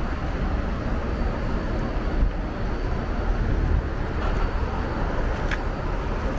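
Steady city-street traffic rumble, with a pickup truck driving slowly toward the microphone. A brief sharp click comes about five and a half seconds in.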